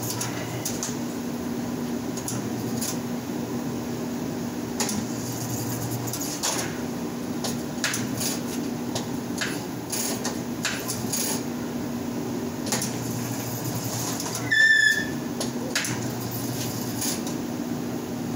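Rim-clamp tire changer humming in short runs as a stiff 14-ply tire is worked onto the rim, with repeated metal clanks and knocks. About fifteen seconds in there is one loud, sharp high squeak.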